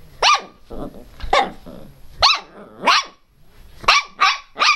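Miniature pinscher puppy barking: a string of about eight sharp, high-pitched yaps in under five seconds, with a low growl between the first few.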